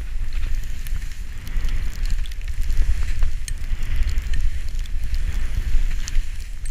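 Wind buffeting an action camera's microphone during a fast ski descent, over the hiss of skis cutting through powder snow. The hiss swells and fades about once a second with the turns.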